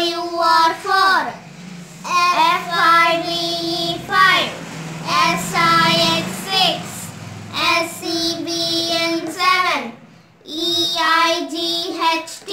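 A child's voice singing in a sing-song chant, one short phrase with held notes every couple of seconds and brief pauses between, going through the number names one by one.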